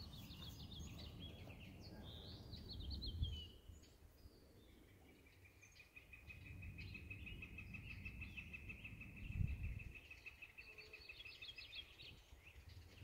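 Faint birdsong: scattered high chirps, and a long even trill that starts about five seconds in and runs for about seven seconds. Low wind rumble on the microphone swells twice, about three and nine seconds in.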